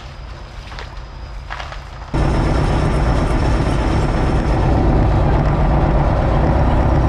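Bulldozer's diesel engine running as it pulls on a stump with a wire rope, a few faint knocks at first. About two seconds in, the engine noise jumps suddenly much louder and stays steady.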